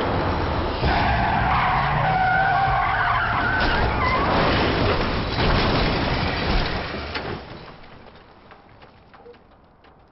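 A car's tyres squeal as it skids through a bend, then a run of crashing impacts as it leaves the road and rolls over. The noise dies away about eight seconds in, leaving faint ticking.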